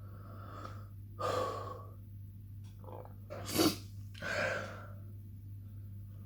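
A man breathing hard through a chilli burn: a heavy exhale a little over a second in, a short sharp hiccup at about three and a half seconds, then another heavy exhale.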